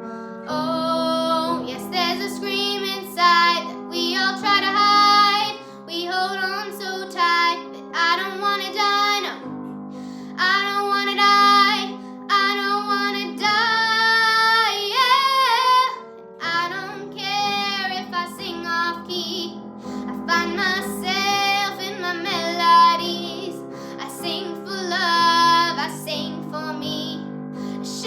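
A young female voice singing a pop ballad over instrumental backing music, phrase after phrase with short breaths between.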